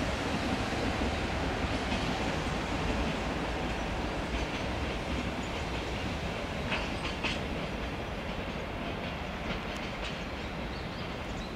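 Freight train of flat wagons rolling slowly away over the rails, with a steady rumble and a few wheel clicks over rail joints around the middle. The sound fades slowly as it goes.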